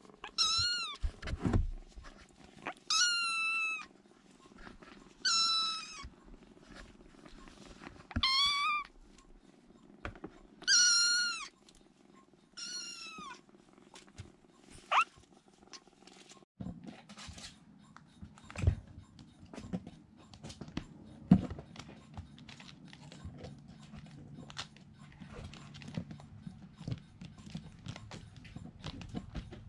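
Young kittens crying with six high-pitched meows about two seconds apart over a low purr while being petted. Later, light scattered taps and scratches as kittens paw and scratch at a fabric-covered drawer front.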